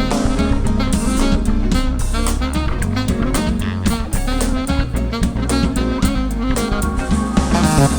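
Live band music: guitar over bass and a steady drum beat, with no singing.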